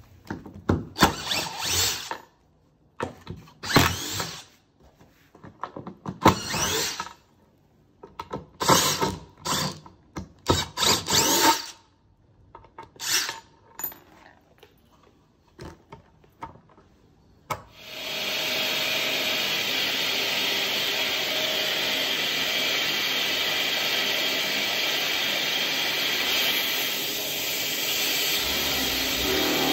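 Cordless Festool drill-driver running in a series of short bursts, a second or two each, as it drives into a wooden strip. About two-thirds of the way through, a Festool dust extractor starts a steady, continuous run as the drill works into a wall cabinet.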